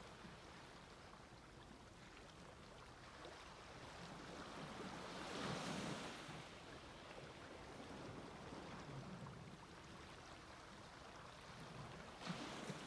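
Small sea waves washing onto a beach, faint. One wave swells to its loudest about halfway through, and another breaks sharply near the end.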